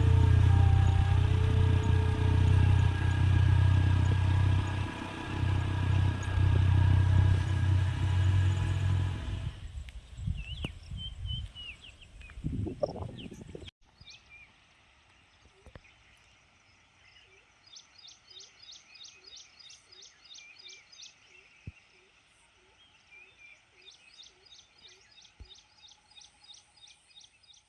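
Motorcycle engine running steadily, fading out after about ten seconds. Then quiet outdoor ambience with birds chirping in rapid trills, in two bursts in the second half.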